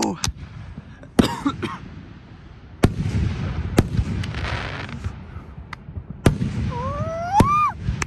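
Aerial fireworks shells bursting: several sharp bangs, roughly a second or so apart, over a steady low rumble.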